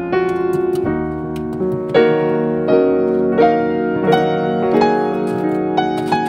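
Background piano music: a melody of notes struck about twice a second over sustained chords.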